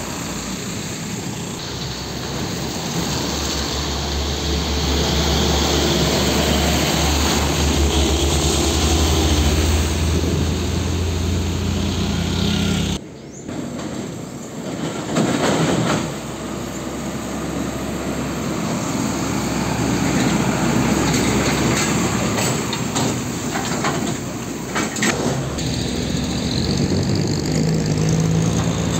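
Heavy diesel trucks driving past on a road, with a strong low engine drone in the first part that cuts off abruptly about halfway through, followed by another stretch of passing traffic.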